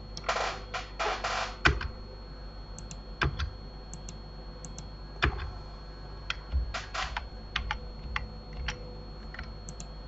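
Computer keyboard keys and mouse buttons clicked irregularly, with a couple of short rattling runs of clicks about half a second to a second and a half in, over a faint steady hum.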